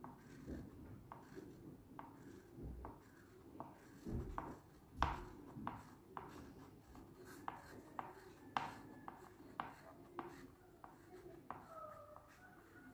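Faint scratching of a red colour stick on paper as a child colours in a narrow shape, in short back-and-forth strokes about two a second, a few of them louder.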